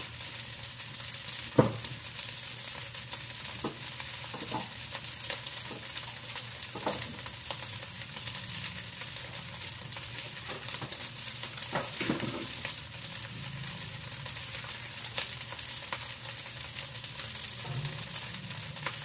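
Rice frying in a large aluminium wok over a gas burner: a steady sizzle, with a few scattered clicks and knocks, the sharpest about a second and a half in.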